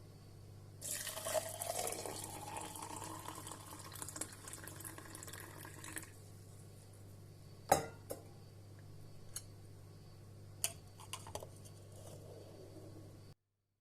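Liquid poured into a cup, the pitch rising as it fills, for about five seconds. Then one sharp clink, the loudest sound, a little before the middle, followed by a few light clicks. A steady low hum runs underneath.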